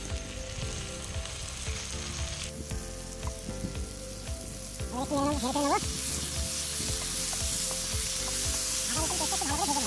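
Onions and ginger-garlic paste frying in hot oil in a pan, sizzling steadily as they are stirred. The sizzle grows louder about six seconds in.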